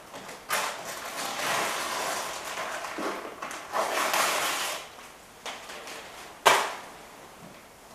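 Masking tape being peeled off a freshly painted fiberglass nose cone: rough rasping rips, one lasting a couple of seconds and a shorter one after, then a single sharp crack near the end.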